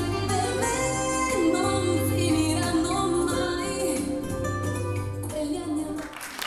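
Closing bars of a slow Italian love song: a sustained, gliding melody over pulsing deep bass notes, dying away just before the end.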